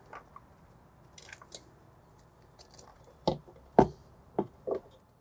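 A marine stereo's wiring harness and plug connectors being fed through the mounting hole in a boat's dash: a light rustle, then four short knocks, the second the loudest.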